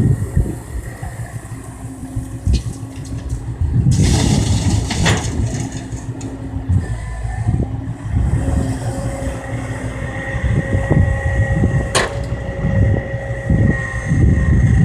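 Kobelco tracked excavator's diesel engine and hydraulics working under load, with a steady whine and a few sharp clanks from the machine.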